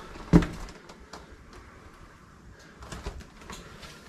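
A sharp knock about a third of a second in, then a few faint scattered clicks and scuffs: footsteps and hands on wet rock inside a small cave, with a short echo.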